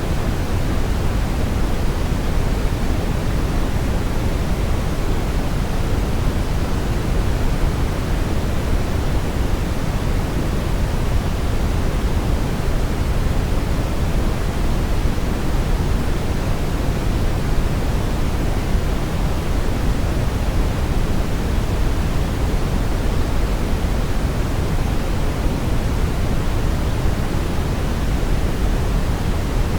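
Steady brown noise: a continuous, even hiss weighted to the low end, rumbling deep with little treble, unchanging throughout.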